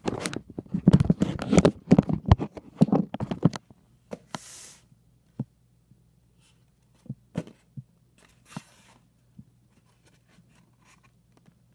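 A cardboard box being opened and handled: dense crackling and scraping for the first three and a half seconds, then scattered single clicks and two short rustles.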